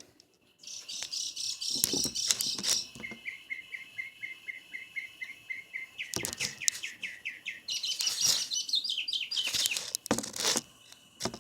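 A songbird singing: quick high chirps and trills, with a run of evenly repeated notes at about six a second in the middle, and a few short knocks or rustles between phrases.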